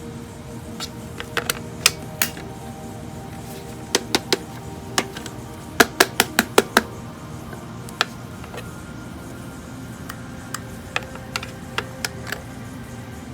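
Sharp plastic clicks, like the buttons of a Sharp SPC585 alarm clock being pressed: scattered single clicks, then a quick run of about six in a second about six seconds in, then a few more near the end. Faint background music runs underneath.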